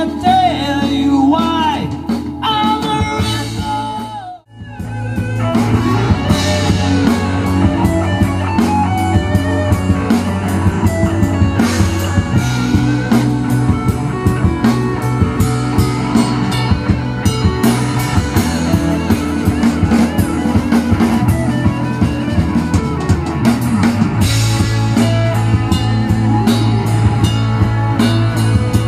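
A live rock band plays: electric guitars, bass guitar and a drum kit. A held chord with a voice rings out at first, the sound drops out for a moment about four and a half seconds in, and then the band plays on with a steady drumbeat.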